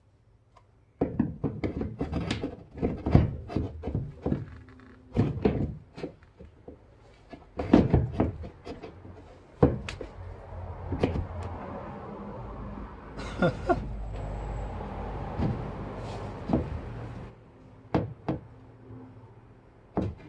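Lewmar stainless steel round portlight being pushed and worked by hand into a rough-cut hole in a fibreglass cabin side, which is too tight for it yet. The metal frame makes repeated knocks and bumps against the fibreglass, then a longer stretch of scraping and rubbing in the second half, then a few more knocks near the end.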